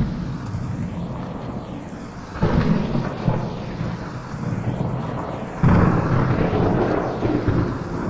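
Heavy thunder rumbling over steady rain, with a fresh roll of thunder breaking in suddenly about two and a half seconds in and a louder one near six seconds. The recording is 8D-processed, panned around the listener.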